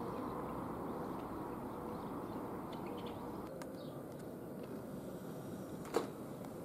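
Steady outdoor town ambience: a low, even rumble of distant street traffic with a few faint high chirps, and one sharp click near the end.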